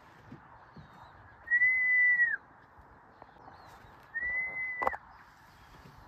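Two long, level whistled notes, each just under a second: the first bends down at its end, and the second is cut off by a sharp knock.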